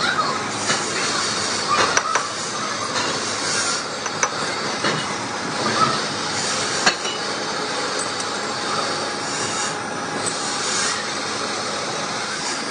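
Steady metalworking machinery din from a lathe shop, with a few sharp metallic clanks and knocks as a cast-iron differential case is set in the lathe's jaw chuck.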